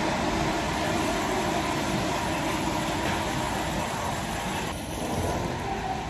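Steady rushing noise with a low rumble inside a moving vehicle, most likely the cabin of an airliner in flight; the tone dulls a little near the end.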